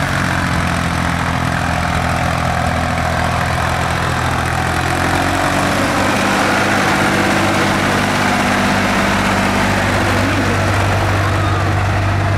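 Several tractor engines running steadily at once, their overlapping engine notes shifting a little in pitch about halfway through and again near the end.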